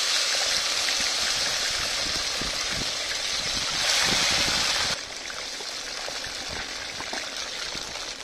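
Diced potatoes sizzling loudly in hot oil in a frying pan, with faint spatula scrapes, as the tadka for a vegetable pulao is fried. The sizzle swells again about four seconds in, then drops to a softer frying hiss about a second later.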